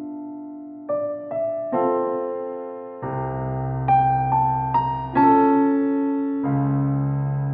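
Background music: a gentle piano or electric-piano piece playing slow, held chords, with a low bass line joining about three seconds in.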